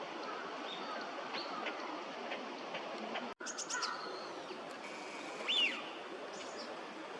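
Small birds chirping over steady outdoor background noise: a quick run of high, thin chirps just after a brief dropout about halfway in, then one louder chirp a couple of seconds later.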